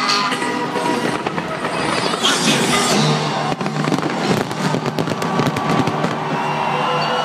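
Fireworks bursting and crackling over loud display music, with a dense run of sharp cracks in the middle.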